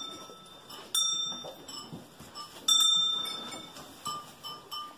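A small bell worn by one of the stall animals, clanking as the animal moves while feeding. There are clear rings about a second in and again past the middle, each dying away over about a second, with lighter, shorter jingles near the end.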